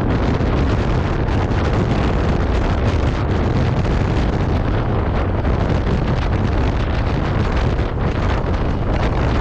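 Steady wind rush buffeting the microphone of a scooter riding at highway speed, about 70 km/h, with a low rumble underneath.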